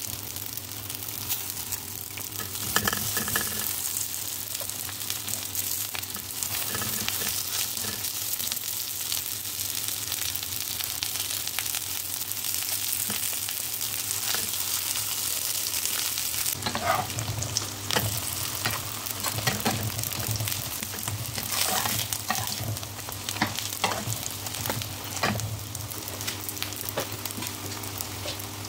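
Small msemen (Moroccan layered flatbreads) sizzling in hot oil in a nonstick frying pan, a steady hiss with scattered light taps.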